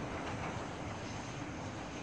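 Steam-hauled passenger train running in the distance, its sound steady and slowly fading as it draws away.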